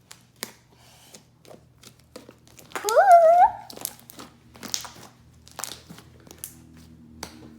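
Homemade glue slime being kneaded and pulled off a bowl by hand: a run of short sticky clicks and crackles. About three seconds in comes a brief high, wavering vocal sound, the loudest thing heard.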